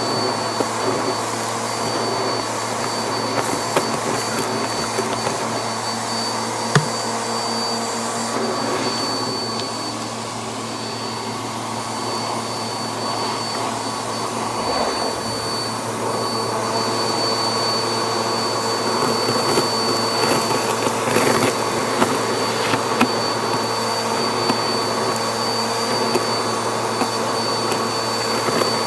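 Vacuum cleaner running steadily with a high motor whine, its hose and crevice tool sucking debris off a shag carpet. Occasional sharp clicks sound over the hum.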